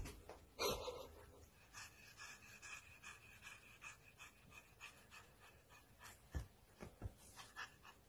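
Faint, quick panting from a pet, with a short, louder noisy burst a little under a second in.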